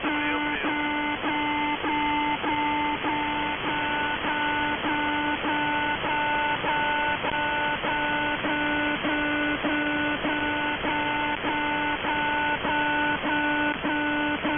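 The Alarm, a Russian military shortwave channel marker on 4770 kHz, received in USB: a low buzzing tone broken by a short gap about twice a second, repeating steadily over radio static. It is the station's idle marker that holds the frequency between voice messages.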